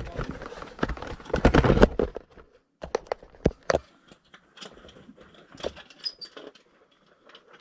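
Scrapes, knocks and clinks of a caver clambering over wet rock and rubble with rope and gear, busiest and loudest in the first two seconds, then thinning to scattered light taps and clicks.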